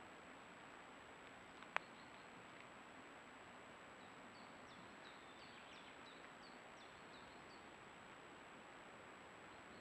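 Near silence: the faint steady hiss of a trail camera's microphone with a thin steady high tone. A single sharp click comes about two seconds in. From about four to eight seconds in, a bird gives a run of faint, short, high chirps, each falling in pitch.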